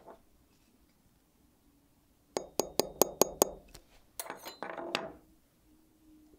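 A light hammer taps a staking tool's punch six times in quick succession, about five a second, each tap a sharp ringing metallic clink, driving a tiny tapered pin into the tourbillon plate. A brief rattle of metal handling follows about a second later.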